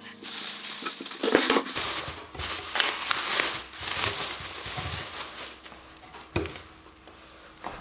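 Black plastic bag crinkling and rustling in irregular bursts as it is pulled off a wooden panel, with a single light knock near the end.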